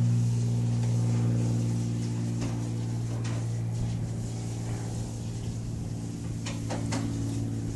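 Steady engine or motor hum, easing slightly after about two seconds, with a few short sharp ticks, a quick cluster of them near the end.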